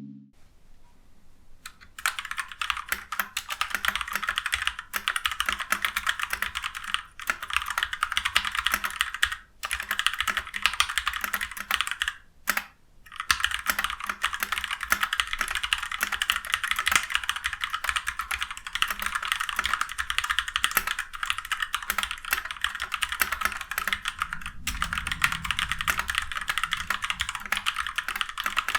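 Continuous fast typing on a stock Ajazz K680T mechanical keyboard fitted with its factory red linear switches, unlubed and without case foam. It begins about two seconds in and stops briefly twice.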